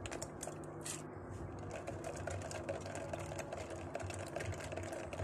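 Ice cubes rattling and clinking against a steel spoon and a plastic jug as lemon water is stirred, a quick, irregular run of small clicks. A steady low hum lies underneath.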